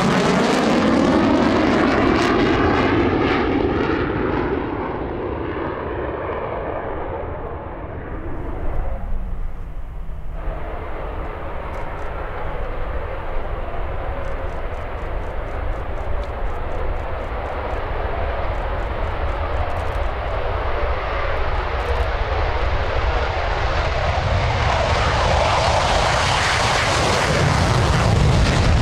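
Sukhoi Su-22 jet, its Lyulka AL-21F-3 turbojet running loud on departure. The pitch falls as it passes in the first few seconds, the sound eases for a while, then builds again near the end.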